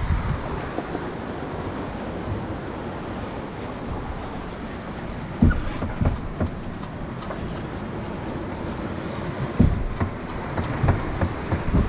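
Surf washing against the rocks and the hull of a sailboat aground, with wind, as a steady rushing noise. A few dull thumps come through in the second half.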